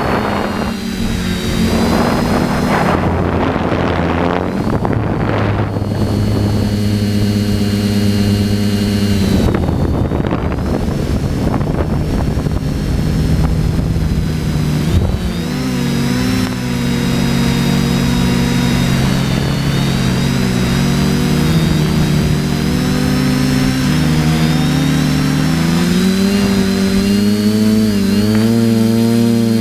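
TBS Discovery quadcopter's electric motors and propellers whining: several tones that shift up and down as the throttle changes, heard from the drone's own onboard camera.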